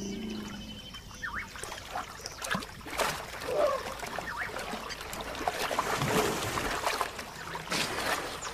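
Water splashing and sloshing in irregular bursts as hippos move about in a river, with a few short animal calls mixed in.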